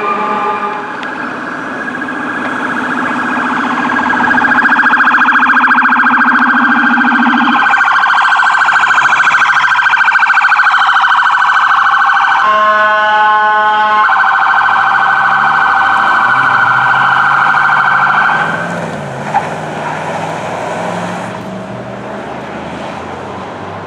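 Emergency-vehicle warning devices: a fire engine's air horns blast at the start. Then a fast-warbling electronic phaser siren from a Chevy Tahoe fire command vehicle dominates, broken about twelve seconds in by a steady electronic horn tone lasting about a second and a half. The siren falls away about eighteen seconds in, leaving passing vehicle engine noise.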